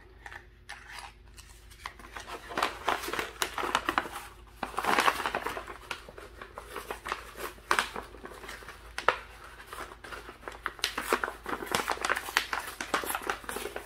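Hands rustling and crinkling paper packaging while rummaging in a cardboard box and pulling out a kraft-paper envelope, with small irregular clicks and taps. The rustling starts about two seconds in and is busiest around the middle and again near the end.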